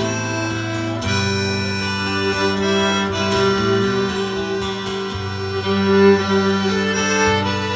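Instrumental break in a live folk-style song: a fiddle plays the melody in long held notes over acoustic guitar accompaniment.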